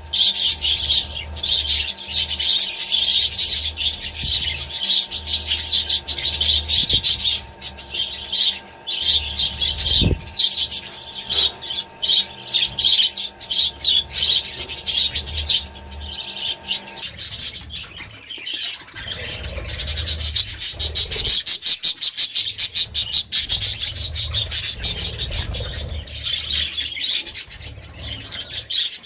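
A flock of budgerigars chattering and chirping continuously, many birds calling at once in rapid, overlapping warbles.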